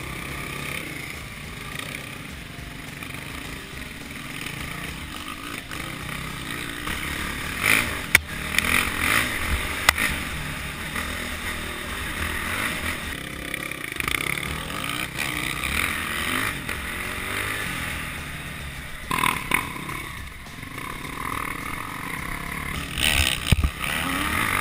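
Enduro motorcycle engine revving up and down as the bike is ridden hard over a dirt trail, heard from a camera mounted on the bike, with several sharp knocks and clatter from bumps along the way.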